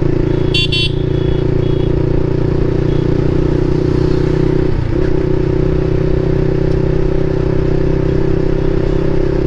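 Motorcycle with an Akrapovic aftermarket exhaust running at a steady engine note while riding, with a brief dip in the note about five seconds in. A short high chirp sounds about half a second in.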